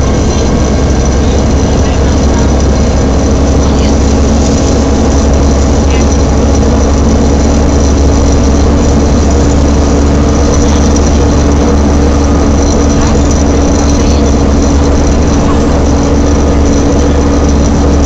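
On-board sound of a Volvo B7TL double-decker bus under way: a steady, loud engine drone with a thin high whine held throughout. The uploader puts the sound down to the bus's "hoover" cooling fan and its whiny Voith automatic gearbox.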